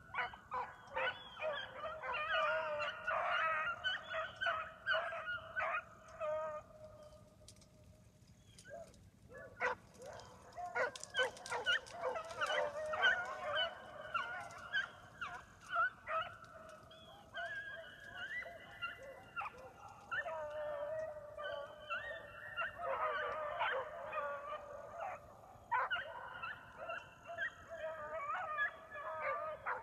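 A pack of young beagles baying as they run a rabbit's trail, many voices overlapping in a continuous chorus, with a lull of a few seconds about seven seconds in.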